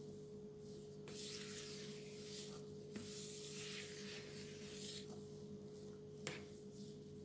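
Silicone spatula gently folding batter in a plastic mixing bowl: faint, soft scraping strokes, roughly one every second.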